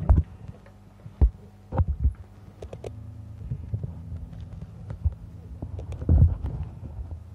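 Steady low electrical hum with a handful of short, heavy low thumps: one at the start, one a little over a second in, a pair around two seconds and the loudest about six seconds in, with faint scattered clicks in between.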